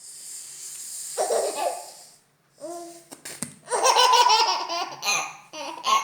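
An eight-month-old baby laughing in repeated bursts, loudest in the second half, after a breathy hiss in the first second.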